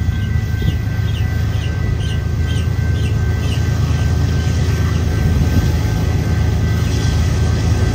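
Diesel freight locomotives running with a steady low drone and a thin steady whine above it. A small bird chirps in quick repeated notes, two or three a second, through the first half.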